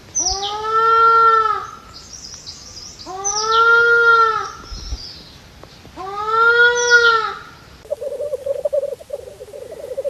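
Western tragopan giving three loud, drawn-out calls about a second and a half each, every call rising then falling in pitch. Near the end the sound switches to the low bubbling display song of a black grouse.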